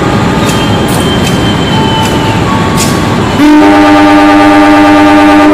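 Train rumbling along a station platform, then about three and a half seconds in a diesel locomotive's horn sounds, loud and steady for about two seconds before cutting off.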